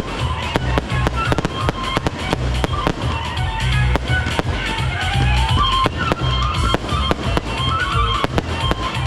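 Fireworks display: many sharp bangs and cracks in quick, irregular succession over loud music with a heavy bass.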